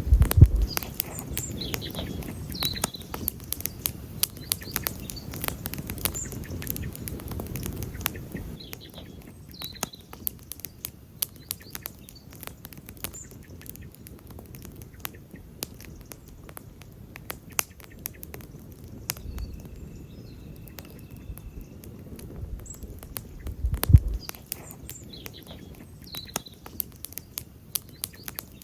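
Wood campfire burning and crackling, with many sharp pops and snaps. A low rumble sits under the first third. The loudest pops come right at the start and about three-quarters of the way through.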